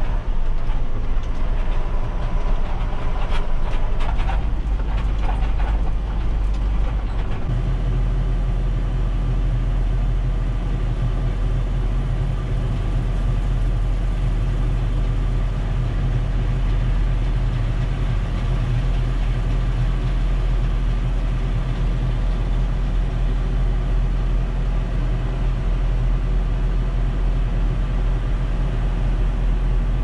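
Tractor engine running steadily, heard from inside the cab, with clatter in the first few seconds as it drives along a dirt lane. About seven seconds in, a deeper, steady drone sets in and holds.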